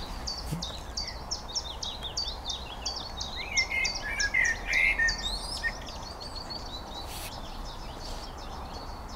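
Small birds chirping: a fast series of short high chirps, about four a second, that fades after about six seconds, with a second bird's lower warbling call in the middle. A steady low background noise runs underneath.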